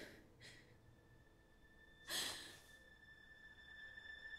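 A person's breathing: two faint short breaths at the start, then one breathy sigh about two seconds in, over a faint steady high-pitched tone.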